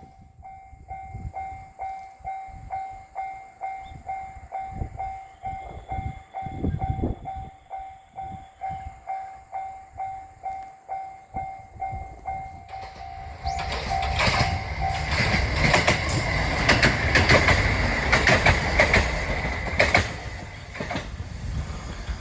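Japanese railway level crossing's warning bell ringing about twice a second. About 13 seconds in, a diesel railcar reaches the crossing and passes with loud wheel clatter over the rail joints, drowning out the bell.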